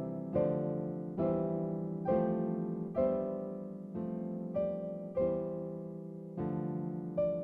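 Background piano music: chords struck about once a second, each ringing and dying away before the next.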